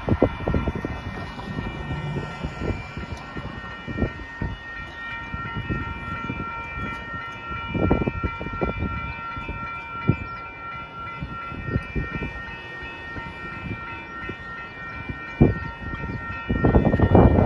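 Railroad crossing warning bell ringing steadily as the crossing signals flash, with gusts of wind thumping on the microphone. Near the end a louder rush of noise swells up.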